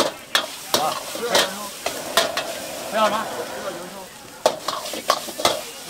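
Metal ladle clanking and scraping against a wok as fried rice is stir-fried, over a steady sizzle of frying. The sharp clanks come at irregular intervals, about nine of them.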